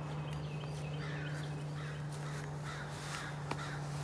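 Birds calling in a repeated series of short calls, about two a second, over a steady low hum, with a single click near the end.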